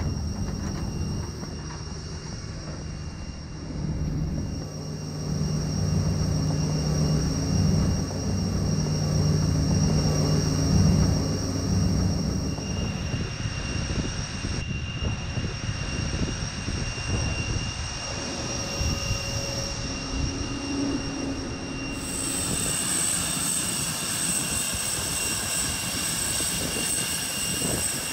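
Airport ramp noise: the steady high whine and rumble of running jet aircraft. A low hum is strongest in the first half, and the mix shifts abruptly a few times.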